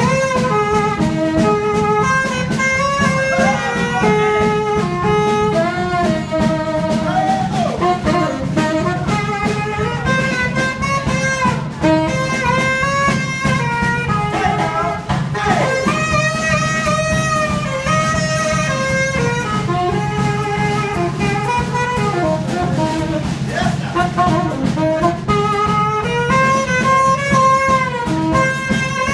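A live brass band playing: saxophone, trumpet and trombone over a sousaphone bass line and a drum kit, keeping a steady beat with no pause.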